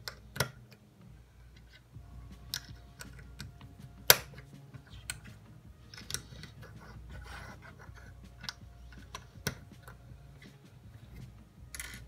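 Lego bricks clicking and clacking as they are pressed together and handled: a scattering of sharp plastic clicks at uneven intervals, the loudest about four seconds in.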